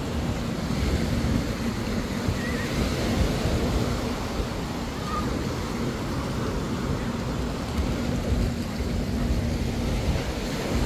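Small sea waves washing up the sand, with wind buffeting the microphone and a faint steady hum underneath.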